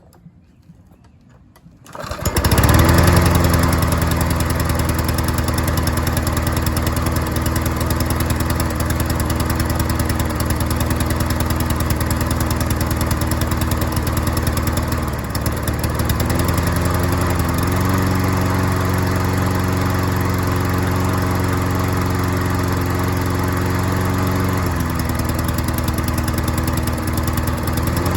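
Troy-Bilt self-propelled lawn mower's small engine starting about two seconds in after a carburettor needle-seat repair, then running steadily. Its speed dips briefly about halfway through, runs higher for several seconds, then settles back: a slight hesitation, which the owner puts down to a wet air filter making it run a little rich.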